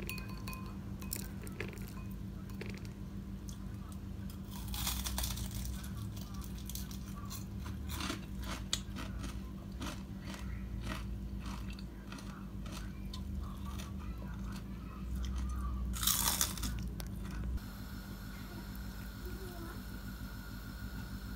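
Crispy deep-fried salmon skin crunching as it is bitten and chewed: a quick run of sharp crackles with two louder crunches, about five and sixteen seconds in, over a steady low hum. The crunching stops a few seconds before the end.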